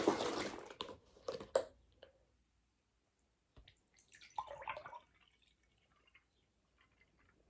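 Orange juice splashing briefly at the start, followed by a few light clicks and knocks of tableware, then mostly quiet.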